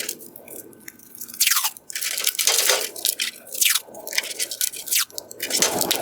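Masking tape being pulled off the roll in a series of short rips and pressed onto a plastic headlight lens, several strips with a falling screech.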